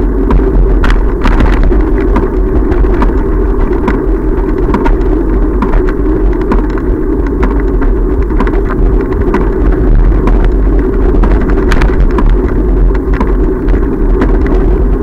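Bicycle riding along a park path, heard through a bike-mounted camera: a loud, steady rumble of vibration and wind on the microphone, with frequent small clicks and knocks from the bike and mount going over the path.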